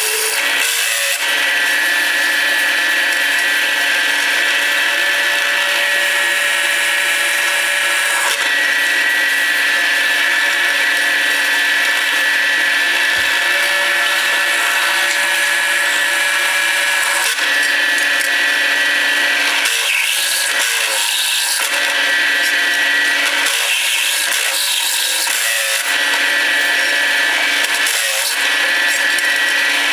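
Bench drill press running, its bit cutting through a flat steel bar with a steady whine; the sound changes briefly a few times in the second half as the cut eases and resumes.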